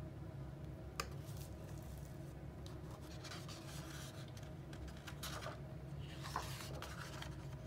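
Faint rustling and light taps of a picture book's paper pages being handled and turned, with a single click about a second in, over a steady low hum.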